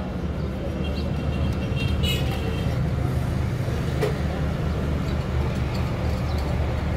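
A motor vehicle engine running steadily at idle, a constant low hum, with one sharp metallic click about four seconds in.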